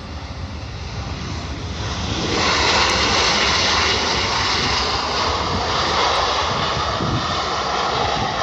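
A passing airliner's engines running loud. The sound swells up about two seconds in and then holds steady as a rushing roar with a faint whine in it.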